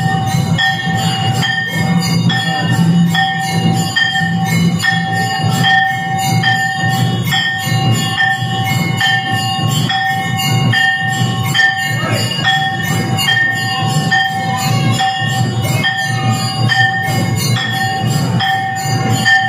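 Hindu temple aarti: bells ringing continuously in a steady held tone over a regular beat of struck percussion, about two or three hits a second.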